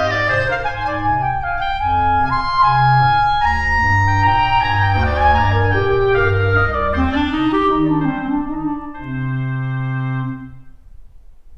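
Instrumental background music: a melody over held chords and a low bass line, ending on a sustained chord that fades away near the end.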